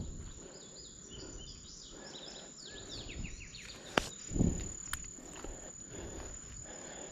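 Summer outdoor ambience: a steady high insect drone, with a bird calling a rapid series of short falling notes over the first few seconds. A sharp click about four seconds in, followed by a soft thump.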